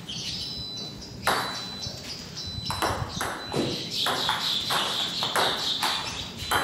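Table tennis ball clicking off paddles and the table: a single hit about a second in, then a quick rally of hits several times a second.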